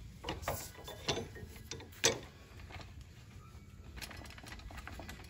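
A few light metallic clicks and knocks as a DeWalt cordless screwgun and its threaded clutch-housing collar are handled and fitted together, the sharpest knock about two seconds in.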